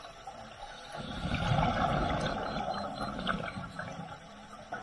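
Scuba diver's exhaled breath bubbling out of the regulator, a gurgling rumble heard underwater that swells about a second in and fades after about two and a half seconds.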